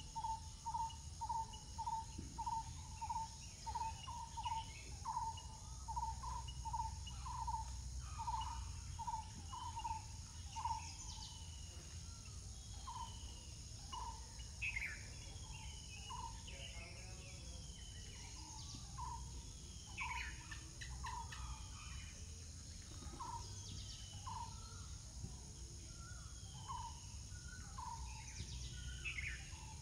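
Birds calling outdoors, one repeating a short, hollow-sounding note about twice a second that slows to about one a second after ten seconds, while others give short descending whistles. There is a steady insect hum and a low rumble underneath.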